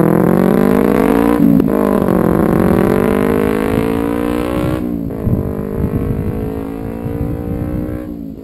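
Kawasaki Ninja 250R parallel-twin with a Level One Racing slip-on exhaust accelerating hard. The engine note climbs, breaks briefly for an upshift about a second and a half in, climbs again, and upshifts again about five seconds in. It then holds a steadier note that slowly drops and fades.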